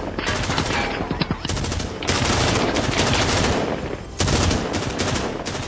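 Rapid automatic gunfire from an action film's soundtrack, fired in several long bursts with brief breaks between them.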